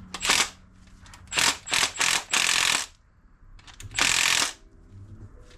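Ratchet wrench clicking in several short bursts as a nut is run down on an engine mount bolt.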